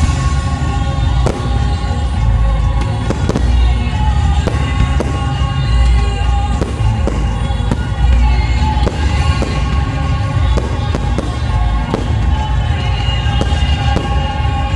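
Fireworks display: shells bursting with sharp bangs, roughly one a second, over a music soundtrack with a heavy bass.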